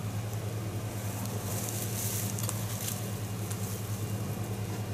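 Cheetahs purring at close range: a steady, low, pulsing rumble. A brief rustle comes about two seconds in.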